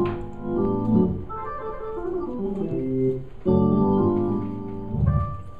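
Organ playing sustained chords, moving to a new chord every second or so.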